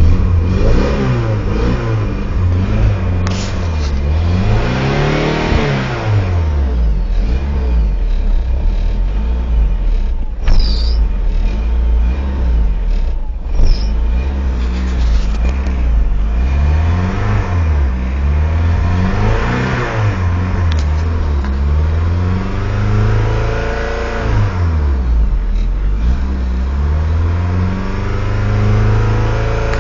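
1995 Mitsubishi Eclipse GST's turbocharged four-cylinder running at a rough idle, its revs climbing and sagging slowly several times. Two short high squeaks with clicks come about a third of the way through.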